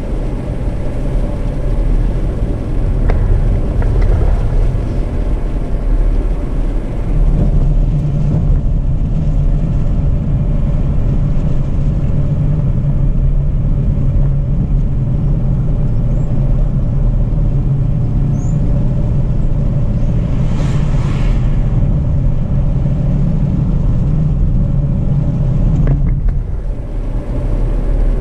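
Jeep Renegade 4x4 driving on a dirt road: a steady low rumble of engine and tyres, easing off briefly near the end.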